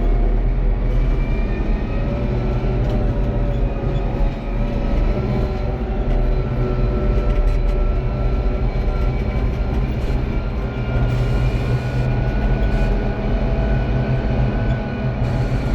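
Tractor engine running steadily under load while driving a rotary tiller, a constant low rumble with level whining tones over it.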